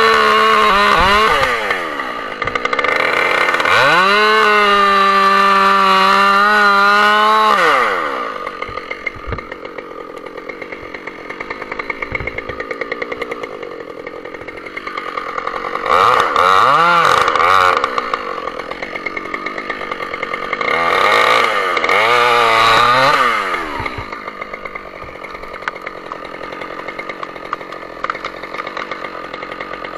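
Husqvarna 572 XP G two-stroke chainsaw cutting at full throttle in a felling cut, easing off briefly about a second in and then revving back up. About eight seconds in it drops to idle, with two short bursts of throttle later on.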